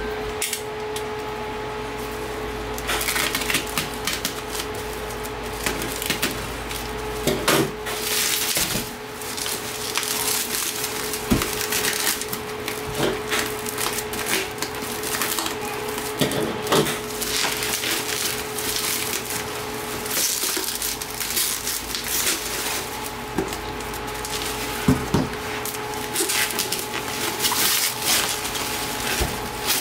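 Clear plastic stretch wrap and bubble wrap crinkling and crackling as it is pulled and torn off cardboard shipping boxes, with a few sharper clicks and knocks of the boxes being handled.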